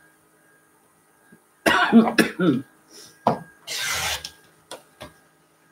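A cough a little under two seconds in. Then a rotary cutter drawn along a ruler, slicing through fabric on a cutting mat in one short rasping stroke, followed by two light clicks.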